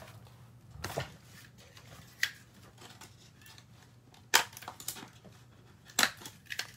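A handful of short, sharp clicks and taps from paper and art supplies being handled on a worktable, the loudest about four and a half seconds in, over a faint steady hum.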